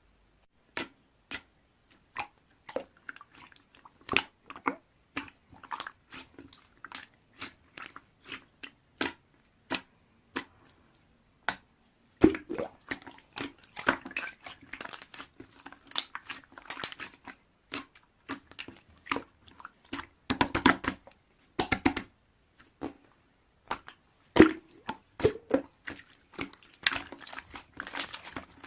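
Slime being pressed and stretched by hand, giving sharp clicks and pops that come in quick, dense crackling runs in the second half.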